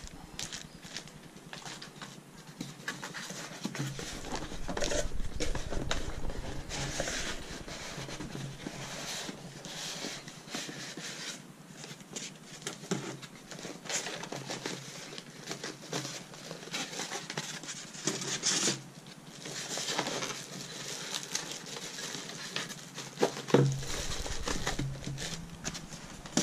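Plastic packaging crinkling and rustling, with styrofoam and cardboard handled in irregular bursts as a boxed rock tumbler is unpacked. A low rumble runs under much of the middle.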